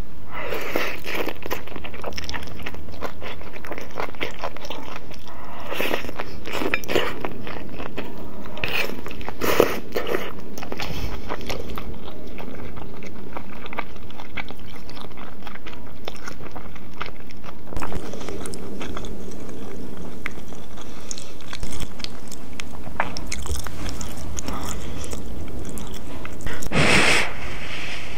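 Close-miked eating: chewing noodles and snow fungus with wet mouth clicks and soft crunches. Near the end, a louder slurp of soup from a spoon.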